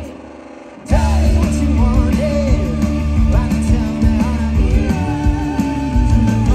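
Rock band playing live through a festival PA: a male singer over electric guitars, bass and drums. The music drops away for just under a second at the start, then the full band comes back in.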